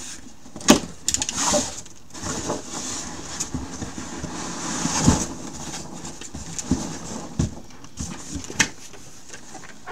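Packing peanuts rustling and a cardboard shipping box being handled as a case is dug out of it, with irregular sharp knocks and bumps.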